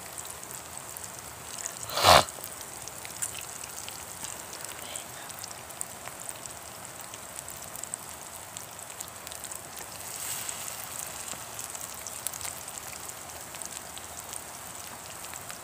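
Corn cakes frying in oil in a pan, a steady sizzle with fine crackling. One sharp knock about two seconds in.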